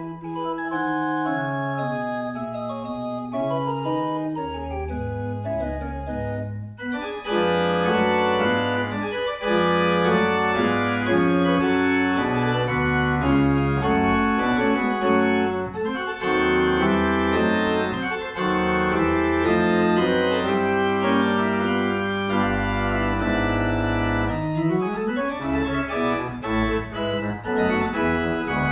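Church pipe organ playing the postlude after the blessing, sustained chords moving over a deep pedal bass. After a brief break about seven seconds in it comes back fuller and louder, with a quick upward run of notes near the end.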